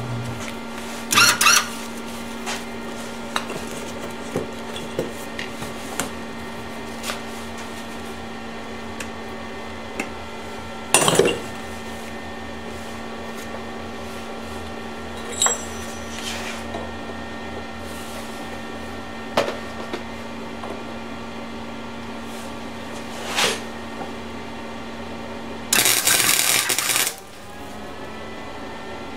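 A few scattered metallic knocks and clinks over a steady hum, then near the end a MIG welder's arc crackles for a little over a second, a short tack weld on the go-kart exhaust header pipe.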